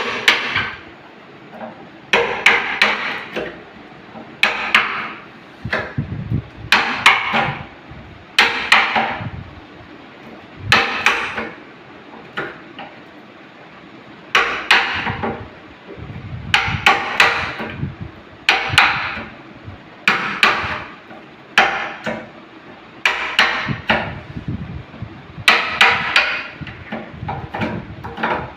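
Hammer blows struck in short groups of a few quick strokes, every second or two, each with a bright ring.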